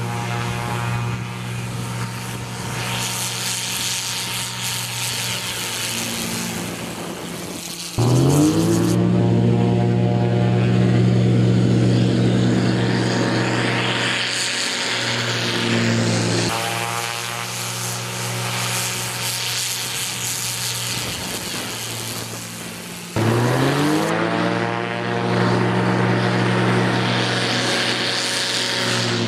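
Zenith STOL CH 750's Viking Honda car-engine conversion and propeller running steadily. About eight seconds in, and again near the end, the engine goes to full throttle for a short take-off run: the sound jumps suddenly louder and its pitch rises, then holds at a steady high drone.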